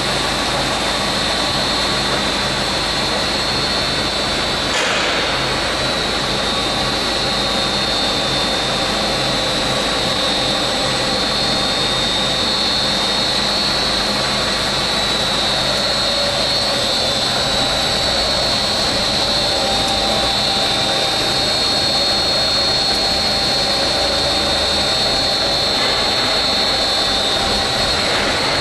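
Plastic sealing-strip extrusion line running: a steady machine drone with a high-pitched whine, and a single click about five seconds in.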